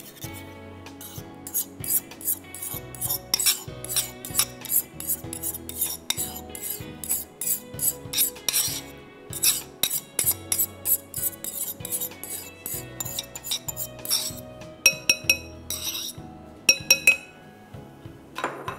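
A spoon scraping and tapping yogurt out of a small bowl into a large ceramic mixing bowl: a quick run of scrapes and clicks, then a few ringing clinks of crockery near the end.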